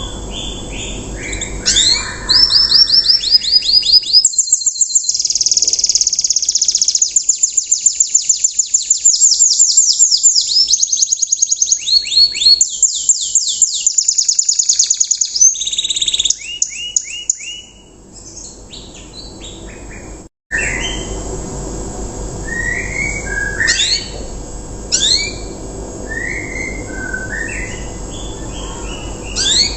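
Domestic canary singing a rough 'riwikan'-style song: long runs of fast, rapidly repeated high notes for the first half, then softer, scattered short chirps and sweeps.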